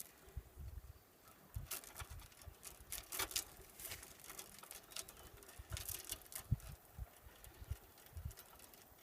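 Faint, irregular clicks and rustles of a small chain and carabiner being handled and fastened in place of a broken mower linkage rod, with low bumps of handling underneath.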